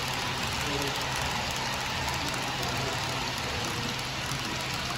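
HO scale model double-stack container train rolling past on its track, its many small wheels making a steady rolling noise.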